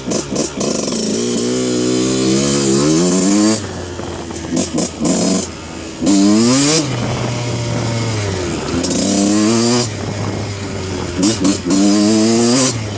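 1991 Kawasaki KX125 two-stroke single-cylinder motocross bike being ridden, freshly rebuilt. The engine climbs in pitch under throttle and drops off three times, with short throttle blips in between.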